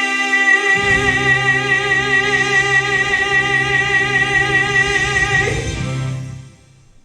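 The last note of a gospel song, held by a singer with vibrato over the band. A low bass note comes in about a second in, and the music fades out near the end.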